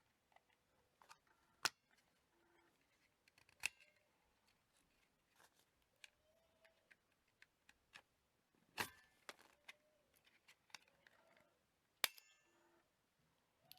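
Scattered sharp clicks and snaps in a quiet room, four louder ones spread several seconds apart with smaller ticks and faint short squeaks between them.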